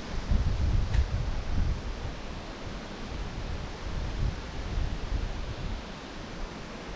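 Wind buffeting the microphone outdoors: uneven low rumbling gusts over a steady rushing hiss.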